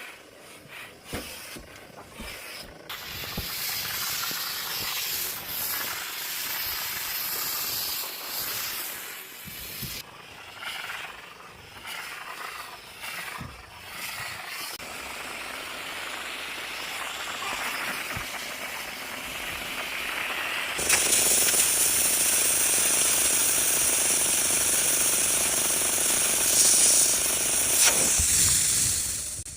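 Bissell steam cleaner hissing as it puts out steam, with scattered clicks and knocks from the machine being handled. About two-thirds of the way through the hiss turns much louder and steady, then cuts off near the end.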